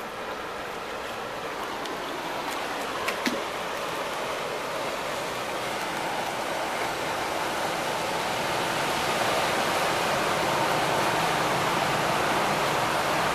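Steady rush and slosh of floodwater, slowly growing louder toward the end as a coach wades through the flooded street and pushes up a bow wave. A single short knock about three seconds in.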